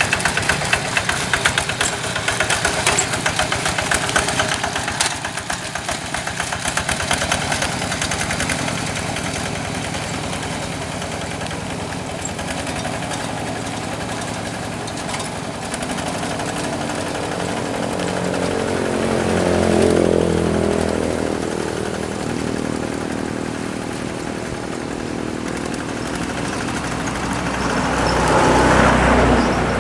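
Kubota RD85DI single-cylinder diesel engine of a Quick G1000 walking tractor running, with a rapid knocking beat for the first several seconds, then a steadier note. The sound swells louder about two-thirds of the way through and again near the end.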